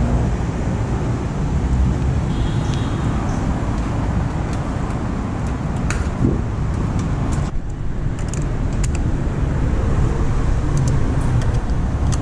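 Steady road traffic on a busy city street: the rumble of passing cars and engines, with a few light clicks and taps over it.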